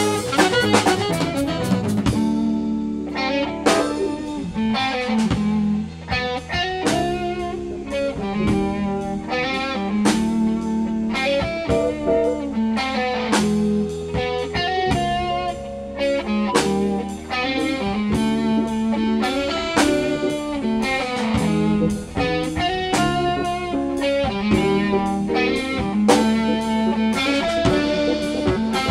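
Small jazz band playing, with electric guitar prominent over bass and drum kit in a busy, fast-moving passage.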